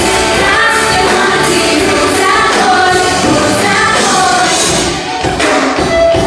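Live pop music with a singer and full band, played loud; about five seconds in the music dips briefly and a sharp hit follows.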